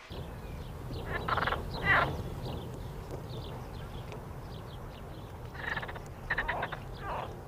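Frogs croaking in a marsh: two bouts of rapid, pulsing croaks, about a second in and again near the end, over a steady low rumble.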